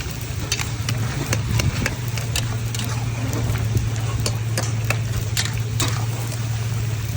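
Metal spatula stirring in a karahi wok, striking and scraping it in quick, irregular clinks, over a steady low hum.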